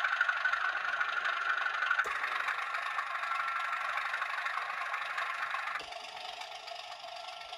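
Class 37 diesel locomotive engine sound at half speed from a Loksound 5 DCC sound decoder, played through small model-railway speakers, thin with little bass. A click about two seconds in and another just before six seconds mark switches to a different speaker, each changing the tone; after the second it is quieter and duller.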